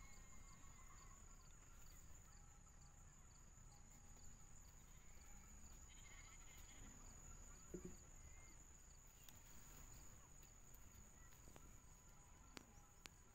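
Near silence with faint, steady high chirping of night insects, about two chirps a second. About eight seconds in, a lamb gives one short, soft bleat, and there are a couple of light clicks near the end.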